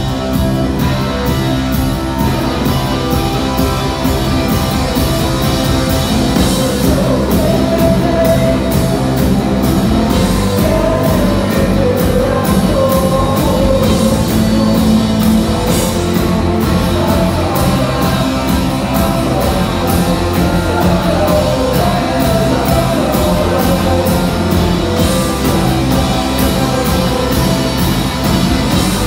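Rock band playing live: electric guitar, keyboard and drum kit, with a man singing, heard from the side of the stage.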